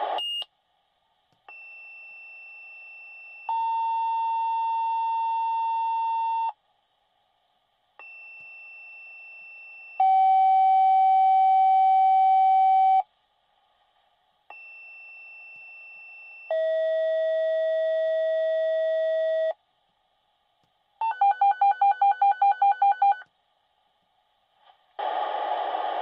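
Fire dispatch radio tone-out: three two-tone sequential pages, each a quieter high tone for about two seconds followed by a louder, lower steady tone for about three seconds, the second tone at a different pitch each time, each pair paging a different unit. Near the end a pulsing alert tone beeps about five times a second for two seconds, and a short beep sounds right at the start.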